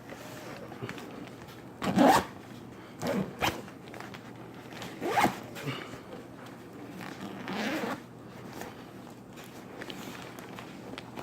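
Zipper being run up and down: four quick rasping zips, the last one slower and longer. It is a test of a slider that has just been pinched with pliers to close the gap, so that the zipper closes properly again.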